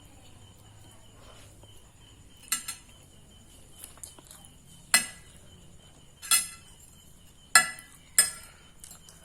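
A metal spoon or fork clinking against a plate while eating noodles: about six sharp, ringing clinks a second or so apart, over a faint steady high-pitched background tone.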